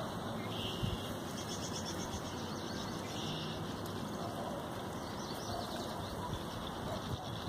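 Faint birds chirping a few times over a steady outdoor hiss.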